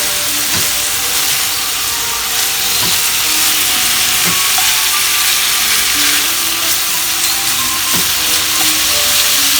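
Cubed steak sizzling steadily in bacon fat in a frying pan as it browns, with a few scrapes and knocks of a utensil stirring the meat.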